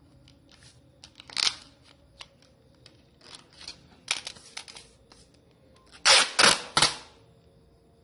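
Clear packing tape being pulled off its roll and pressed down over a paper envelope: short ripping bursts with paper rustling between, the loudest three close together about six seconds in.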